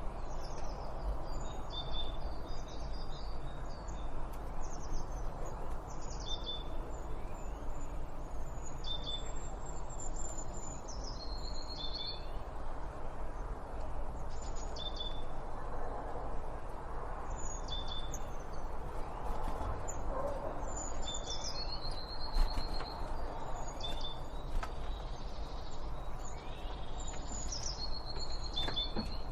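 Songbirds calling and singing: repeated short, high chirps, and several songs that drop in pitch and end in a rapid trill, over a steady low background rumble.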